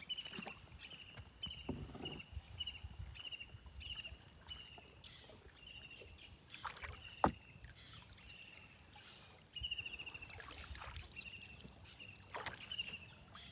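Canoe being paddled on a river, the paddle swishing through the water every few seconds, with one sharp knock about seven seconds in. A high chirp from a bird or insect repeats about twice a second.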